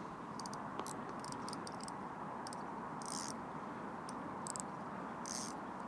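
Steady rush of a fast-flowing river, with clusters of short, high clicks and two brief hisses over it.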